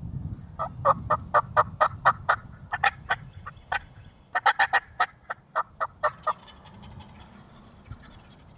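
Two runs of turkey yelps, short evenly spaced notes about four a second, with a brief pause between them.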